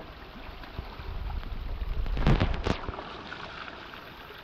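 Water gushing out of the end of a 1¼-inch PVC pipe and splashing onto the rocky creek bed, over a low rumble, with a few sharp knocks about halfway through.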